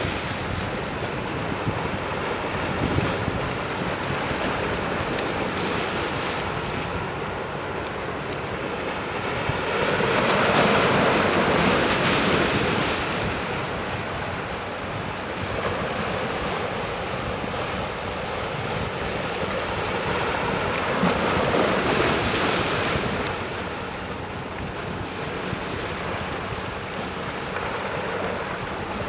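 Steady rush of wind and harbour water, swelling twice: about a third of the way in, and again about two-thirds of the way in.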